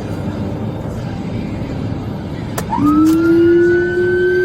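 Vehicle road noise, then about two and a half seconds in a click and a police car siren switched on, rising quickly into one long, steady wail.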